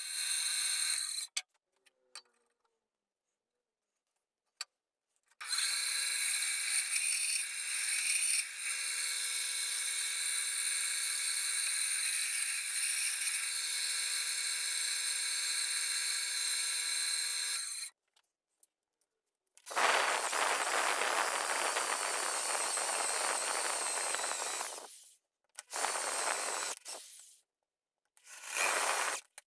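Benchtop band saw running with a steady whine as it cuts a walnut handle blank; it stops about a second in and runs again for about twelve seconds. Then a rougher, noisier power tool works the wood for about five seconds and in two short bursts near the end.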